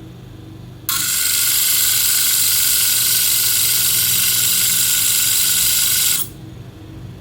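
A hair-clipper blade ground against the spinning disc of an electric blade-sharpening machine: a loud, steady, high-pitched grind that starts sharply about a second in and stops abruptly about five seconds later, over the machine's low motor hum.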